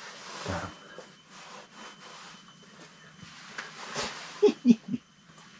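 Rasping and rubbing noise of rod, reel and clothing being handled while an angler fights a hooked northern pike through the ice. Near the end there are three short, louder low sounds.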